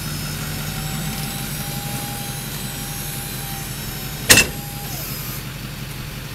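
Small 12-volt hydraulic pump motor whining steadily as it drives the hitch's cylinders, over a pickup engine idling. A single sharp clunk comes a little over four seconds in, and the pump whine stops about half a second later.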